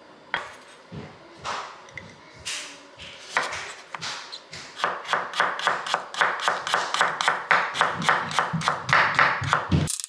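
Chef's knife slicing radishes on a wooden cutting board. There are a few separate cuts at first, then from about five seconds in a quick, steady run of chops, about three or four a second.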